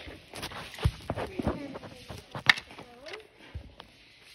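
Small plastic doll accessories being handled: several sharp clicks and taps with light rustling between, the loudest tap about two and a half seconds in.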